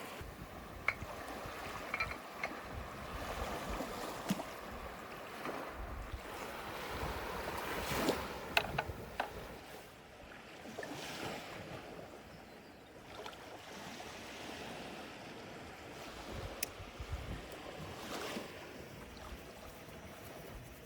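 Steady sea-water and wind noise with a few scattered light knocks and clicks.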